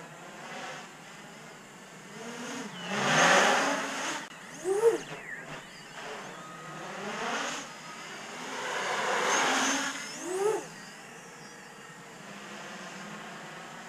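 Large 800 mm X-Class racing drone (MaydayQuadWorks Patriot X on 12S) flying past overhead. Its propellers and motors make a buzzing whine that swells loudly twice, about three and nine seconds in, each swell ending in a quick rise and fall in pitch as it passes close. In between there is a quieter steady hum.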